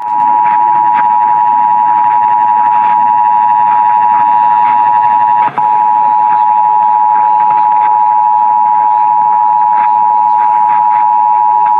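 Emergency Alert System attention signal: the two-tone alert (853 Hz and 960 Hz sounded together) held steady and loud, here opening the Required Monthly Test. It comes over AM radio with static crackles beneath it and drops out for an instant about halfway through.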